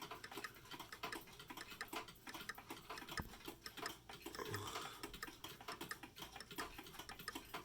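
Faint ticking of a mechanical clock, many small clicks in quick succession.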